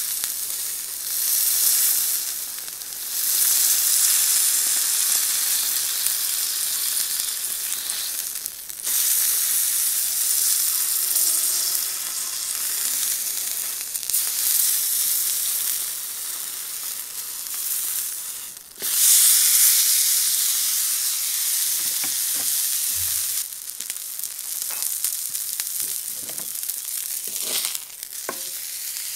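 Ribeye steak searing on a hot flat-top griddle: a steady loud sizzle that swells and drops back suddenly several times, with scattered crackles near the end.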